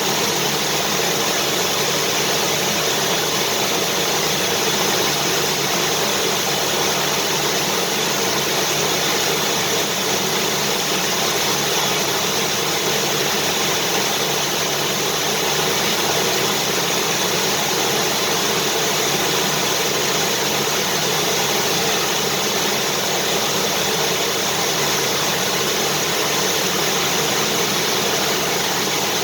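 Vacuum cleaner motor running steadily, a constant whooshing hum with no change in pitch or level.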